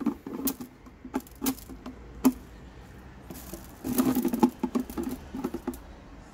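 Mung beans being spread by hand over the plastic grid of a bean-sprout maker, clicking and rattling against the plastic, with handling knocks of the plastic bucket. The clicks come irregularly, with a busier patch about four seconds in.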